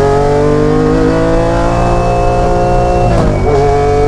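Lancia Stratos HF's Ferrari Dino V6 engine pulling hard under acceleration, heard from inside the cockpit, its pitch climbing steadily. About three seconds in it breaks and drops for an upshift, then climbs again in the next gear.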